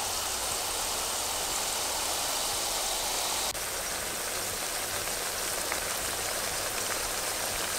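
Hot oil sizzling steadily in a frying pan around frying dough and plantain slices, an even hiss like rain. There is a short break about three and a half seconds in.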